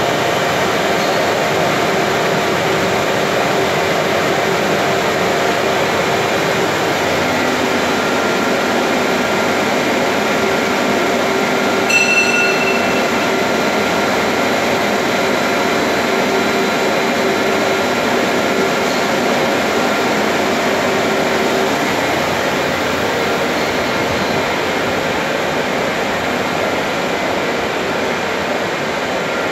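Steady machinery drone of a running HDPE pipe extrusion line, with several steady hum tones under the noise. A brief high beep comes about twelve seconds in.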